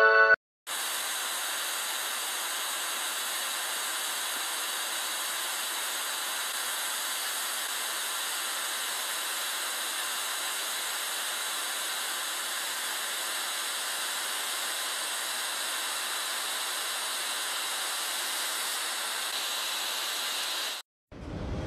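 Handheld blowtorch flame hissing steadily. The hiss starts about half a second in and cuts off suddenly near the end.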